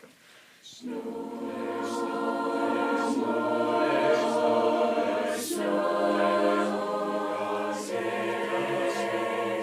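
High school choir singing sustained chords in several voices, starting about a second in, with the chord changing about halfway through and again near the end.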